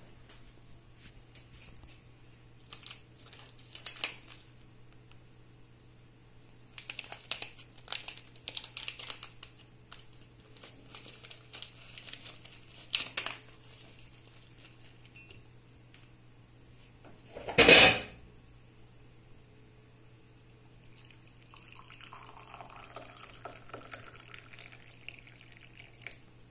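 Tea-bag sachet crinkling and tearing in the hands, with small clicks, then one loud knock about two-thirds through. Near the end water is poured from a kettle into a ceramic mug over the tea bag, all over a steady low hum.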